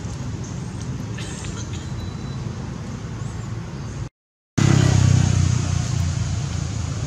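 Steady low rumble of outdoor background noise, with a few faint clicks about a second in; it cuts out for half a second just after four seconds in and comes back louder.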